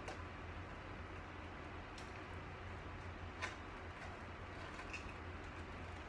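A few faint scattered clicks from hands handling the plastic fittings and cables of a computer cart, the sharpest about three and a half seconds in, over a steady low hum.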